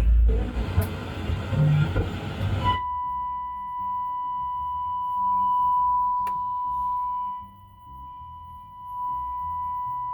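A Technics SA-500 receiver on the test bench: a loud stretch of music cuts off abruptly nearly three seconds in, and a steady sine test tone then plays through the amplifier. The tone briefly drops in level and comes back near the end.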